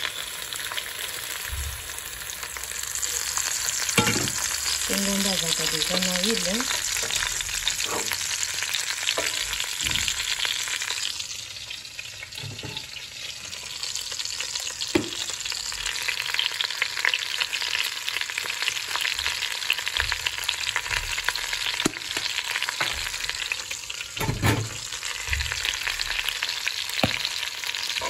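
Hot cooking oil sizzling and frying steadily. The sizzle eases for a few seconds around the middle. Scattered knocks of pans and utensils are heard throughout.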